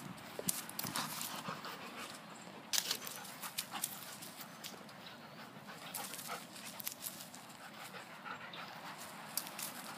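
A dog panting after play, with scattered small clicks and rustles; the sharpest comes about three seconds in.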